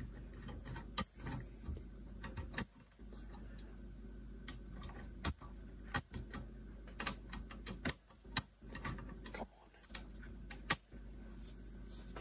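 Scattered light metallic clicks and ticks, irregular, of a screwdriver and small screws being worked loose from the sheet-metal chassis of a cassette deck.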